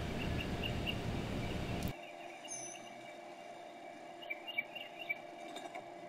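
A steady hiss that cuts off abruptly about two seconds in, then faint outdoor birdsong: a few short, high chirps from small birds, with a small cluster of them near the end.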